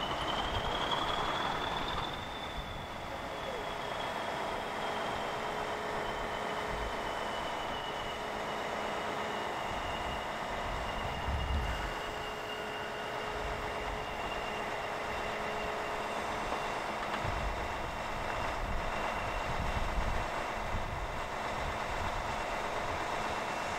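Steady machine hiss and hum with a thin high whine that rises a little over the first two seconds and then slowly sinks, with gusts of wind buffeting the microphone.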